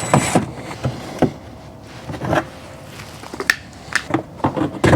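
Scattered light clicks, knocks and rubbing of hands working through the plastic wheel-well access door to twist out a fog light bulb.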